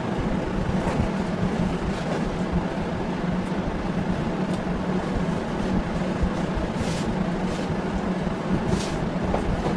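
A steady low drone or hum, like a fan or motor, that holds an even level throughout. A couple of brief soft rustles come about seven and nine seconds in.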